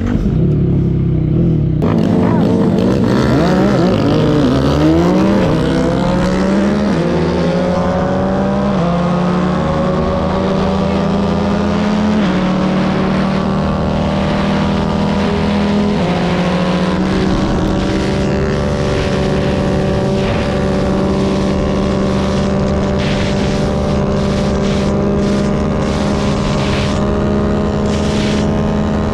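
Tuned single-cylinder 150 cc motorcycle engine at full throttle: its pitch climbs for about ten seconds as it accelerates, then holds a high, steady note at top speed. Wind buffets the microphone in the second half.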